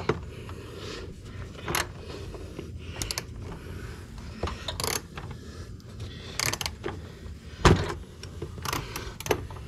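Metal hand tools clinking and knocking against engine parts while bolts are worked by hand, scattered clicks with one louder knock about three-quarters of the way through.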